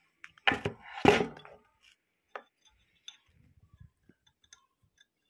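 Metal clinking and knocking as a hex key and the clutch wheel of a Juki bartack sewing machine motor are handled during fitting: a quick cluster of clinks about half a second to a second and a half in, a single click a little later, then faint small ticks.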